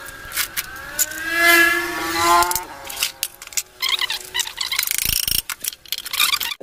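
Metal clicks and taps as bolts come out and the aluminium clutch cover of a Hero HF Deluxe engine is worked loose by hand, with a low knock about five seconds in. About a second in, a wavering drawn-out tone of unclear source rises over them for about a second and a half and is the loudest sound.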